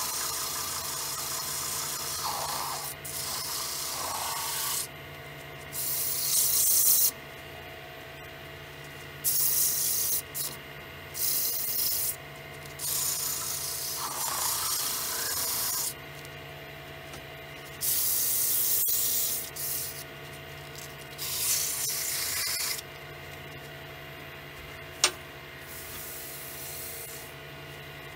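Sandpaper held against the mouth of a willow vase spinning on a wood lathe: a hissing sanding sound in repeated strokes of one to three seconds, stopping and starting, over the steady hum of the running lathe. A single sharp click near the end.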